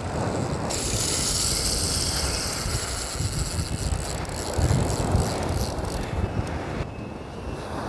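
Spinning reel's drag buzzing as a hooked roosterfish pulls line off against it, starting about a second in and cutting off shortly before the end. A low rumble of surf runs underneath.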